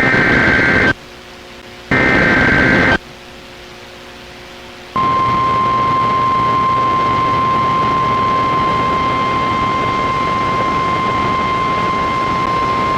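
NOAA Weather Radio Emergency Alert System alert: the last two of the three SAME header data bursts, each about a second long and a second apart, then a couple of seconds of hiss. About five seconds in, the steady 1050 Hz warning alarm tone begins and holds, announcing a severe thunderstorm warning.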